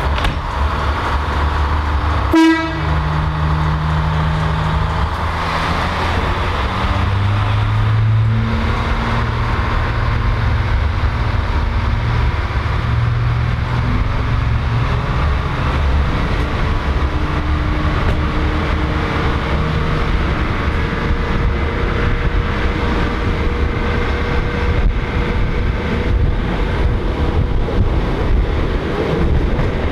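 CPH railmotor's diesel engine pulling away from a station, with a short horn toot about two seconds in. The engine note climbs in steps over the first dozen seconds as the railcar accelerates, then settles into steady running with wheel and rail noise.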